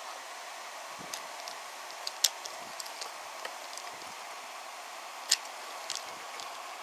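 Wooden toy train pushed by hand along a wooden track: scattered light clicks and knocks from the wooden wheels and cars, two sharper clicks about two and five seconds in, over a steady background hiss.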